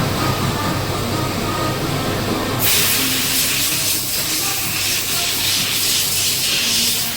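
Machining-workshop hum, then a loud, steady hiss of compressed air blowing that starts suddenly about two and a half seconds in.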